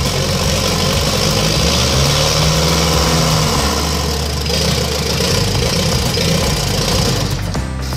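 Rebuilt VW 1.9 SDI naturally aspirated four-cylinder diesel, out of the car on an engine stand, running from cold just after catching on the third start attempt. Its speed rises briefly about two seconds in, then settles back.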